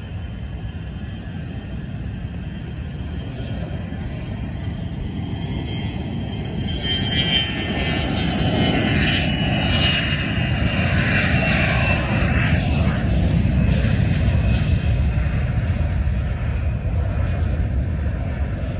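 Cessna Citation X business jet's two Rolls-Royce AE 3007 turbofans at takeoff power: a rumble with a high whine that grows louder toward the middle, drops in pitch, then eases off slightly near the end.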